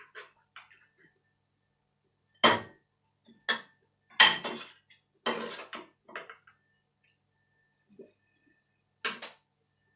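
Utensils and dishes clattering in the kitchen: about six separate sharp clinks and knocks, the loudest a little over four and five seconds in.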